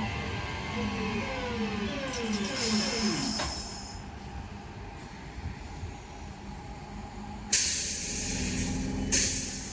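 Class 323 electric multiple unit slowing to a stop: its traction whine sweeps downward in several tones and dies away. Then comes a hiss of air, followed by two loud sudden bursts of air near the end.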